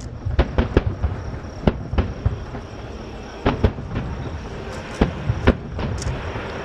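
Aerial fireworks shells bursting in a rapid, irregular run of about a dozen sharp bangs, coming in clusters of two or three, over a steady low rumble.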